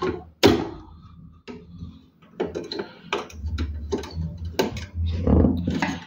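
Clicks, knocks and rattles of hands working inside a desktop computer's steel case, unplugging the hard drive's SATA cables, growing busier in the second half with a low rumble of handling in the middle.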